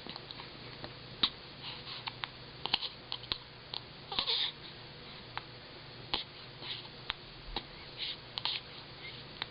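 A small child hiccuping over and over: irregular short, sharp clicks, some with a quick breathy catch, and a slightly longer breathy sound about four seconds in.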